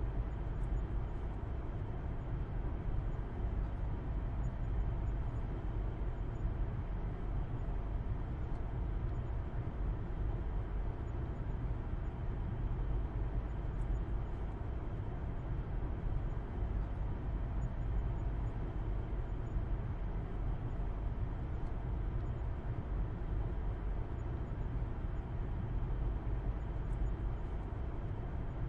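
Car driving at a steady speed with a low, even road and engine rumble and tyre noise, heard from inside the cabin.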